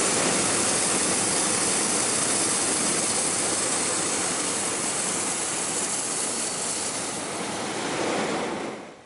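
Hot-air balloon propane burner firing in one long steady rushing blast that cuts off near the end.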